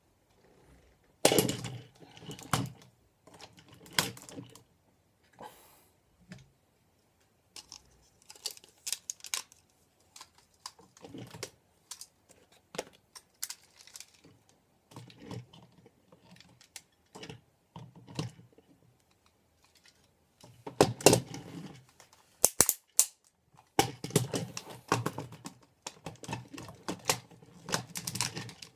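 Hard plastic toy parts clicking, snapping into place and clattering on a table as a Shinkenger origami mecha toy is put together. The clicks come irregularly, with busier bursts of handling about a second in and in the last eight seconds.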